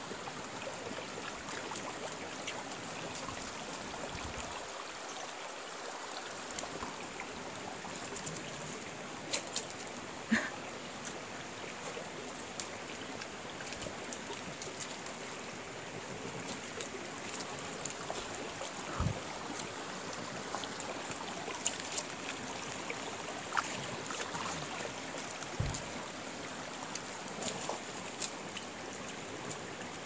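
Shallow mountain stream running over rocks, a steady rush of water, with a few brief faint knocks and splashes.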